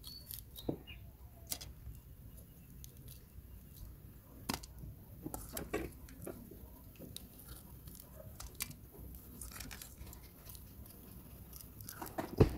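Kitchen knife cutting the heads off raw shrimp in an aluminium bowl: quiet, scattered crunches and clicks of shell being cut and shrimp being handled, with one sharper knock near the end.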